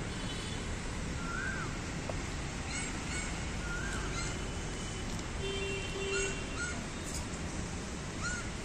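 Birds calling over a steady background hiss: a short rising-and-falling whistled note repeated every couple of seconds, with scattered higher chirps in between.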